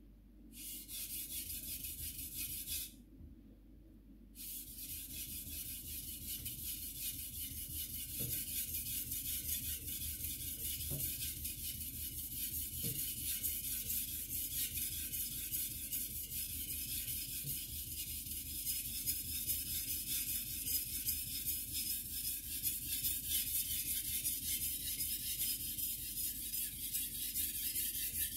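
A white #2 carbon-steel gyuto blade scraping back and forth over a wet whetstone in a quick, steady run of rasping strokes. The strokes stop briefly about three seconds in and then go on.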